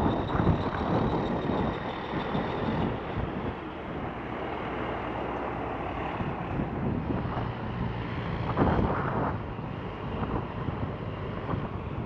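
Cabover Peterbilt semi truck's diesel engine running as the rig moves slowly across the lot, with wind buffeting the microphone and a louder gust about three quarters of the way through.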